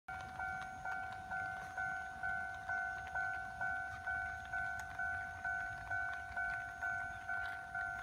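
Railway level-crossing warning bell ringing in a steady, even rhythm of about two strokes a second, each stroke a ringing tone that fades before the next. It signals that a train is approaching the crossing.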